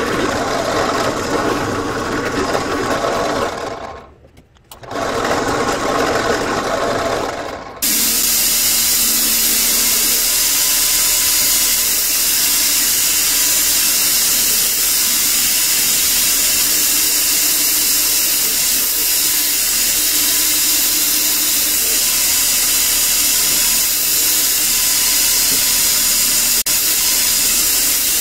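A drill press runs for the first few seconds and briefly stops about four seconds in. From about eight seconds a belt grinder runs steadily, its abrasive belt sanding the wood-and-steel full-tang knife handle and sending sparks off the steel.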